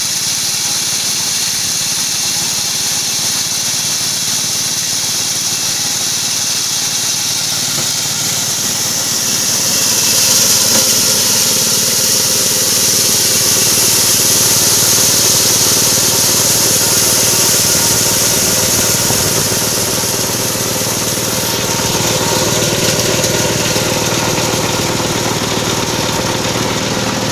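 Corn grinding machine running steadily with its engine, a continuous mechanical drone. About nine seconds in it grows louder with a strong hiss, easing back after about twenty seconds and swelling briefly again a little later.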